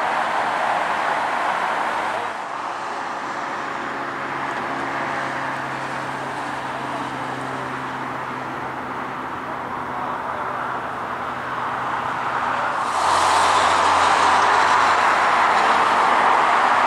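Airport ambience: a steady rushing noise with a faint low steady hum through the middle, dropping abruptly about two seconds in and jumping louder again near the end.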